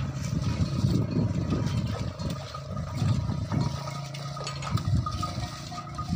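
Water buffaloes wading out of shallow water through soft mud, their hooves splashing and sucking in the mud in an irregular run of low sounds. A low steady hum lasts about a second past the middle.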